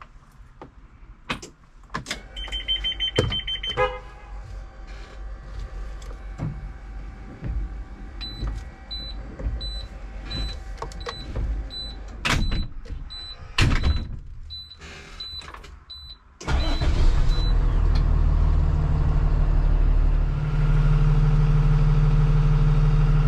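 Dashboard switch clicks and a short chime, then a steady warning beep about three times every two seconds. About 16 seconds in, the bus's Cummins diesel starts suddenly and settles into a steady idle.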